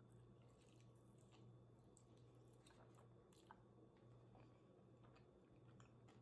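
Faint close-up chewing with small wet mouth clicks and crackles, over a low steady hum.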